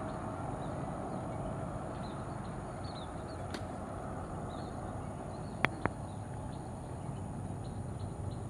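Outdoor roadside ambience: a steady low rumble and hiss, with faint high chirps scattered through it. Two sharp clicks come close together about two-thirds of the way through.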